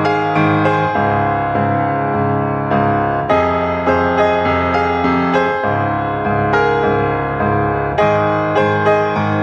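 Background piano music: single notes struck over held chords at a slow, even pace.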